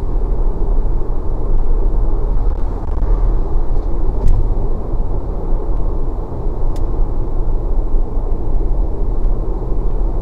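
Car cruising at highway speed, heard from inside the cabin: a steady low rumble of road, tyre and engine noise.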